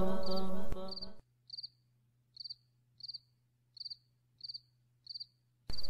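Cricket chirping: short pulsed chirps, each of a few quick pulses, repeating about every two-thirds of a second. A chanted voice fades out about a second in, and chanting starts again just before the end.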